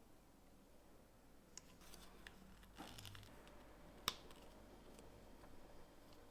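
Very faint handling of LEGO pieces: soft rustling with a few small clicks and one sharper click about four seconds in, as bricks are picked up and pressed together.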